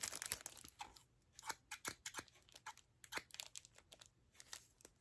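Scattered light clicks and snips as a large pair of scissors from a jewelry tool kit is handled and worked open and shut.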